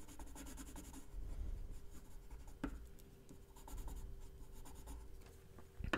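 Faint scratching of a red watercolor pencil on paper as a letter is coloured in.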